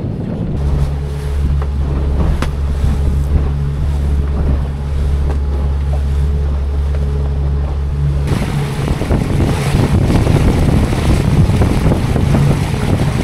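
Outboard motor running steadily with a low hum. About eight seconds in, this gives way to a loud rush of wind and water as the boat runs under power.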